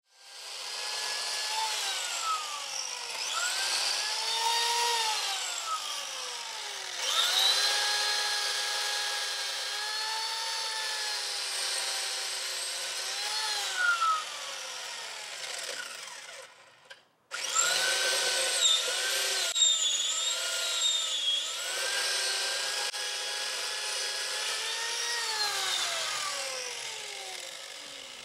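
Corded electric chainsaw cutting branches, its motor pitch sagging as the chain bites into the wood and climbing back as it comes free, again and again. There is a brief break about seventeen seconds in.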